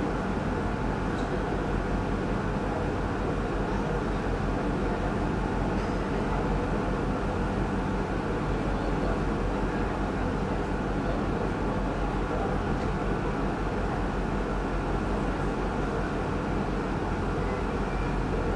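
River tour boat's engine running with a steady drone, heard from on board.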